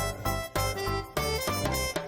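Upbeat background music: plucked and keyed instrument notes over a steady bouncy beat.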